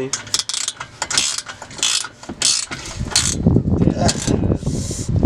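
Ratchet wrench clicking in repeated strokes while tightening the exhaust bolts, with denser, lower knocking and rattling in the second half.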